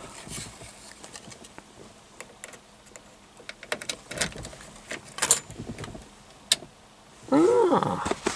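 Scattered sharp clicks and light handling noises from the car's dashboard controls as the radio is switched on. Near the end comes a short voiced sound that rises and falls in pitch.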